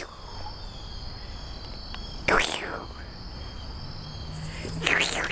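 Steady high chirring of crickets, broken twice by a brief loud sound, about two and a half seconds apart.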